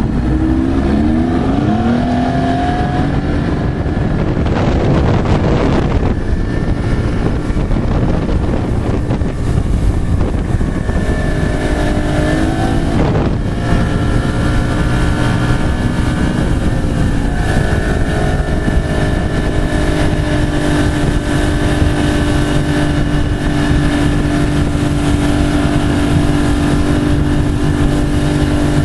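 Ski boat's engine under way: its pitch climbs in the first few seconds and again about twelve seconds in, then holds steady from about seventeen seconds on, over a loud, steady rush of noise. A brief burst of noise comes about five seconds in.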